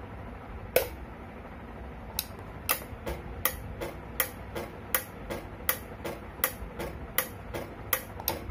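Flovell F01D12 pneumatic fluid dispenser cycling on its own, its electro-pneumatic valve clicking open and shut on 0.34-second shots with 0.4-second gaps, about three clicks a second. A single click comes just under a second in, and the steady run of clicks begins about two seconds in.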